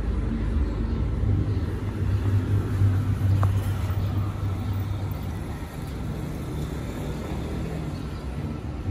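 Steady low rumble of a motor vehicle engine running close by, a little louder in the first half.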